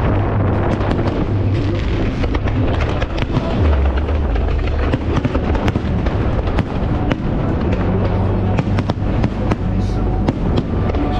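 Aerial fireworks going off in quick succession, many sharp cracks and pops, over loud show music with a steady bass line.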